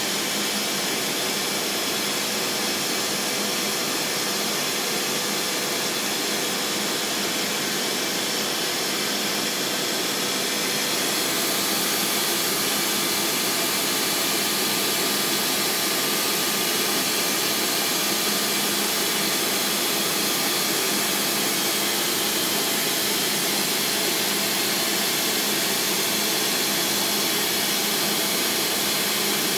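Trak TMC7 vertical machining center running: a steady whir and hiss with a few faint steady tones, growing slightly louder and brighter about eleven seconds in.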